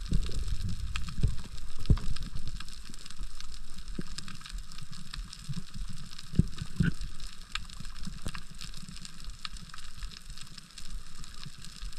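Underwater reef ambience: a crackle of scattered small clicks over low rumbling water noise, with a couple of dull thumps about six and a half seconds in.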